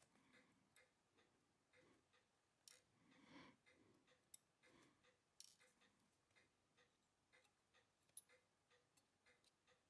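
Very quiet bench work on a mechanical watch movement: steel tweezers and small parts give scattered light clicks, with a brief soft rustle about three seconds in. Under it runs a faint, even ticking, about three ticks a second.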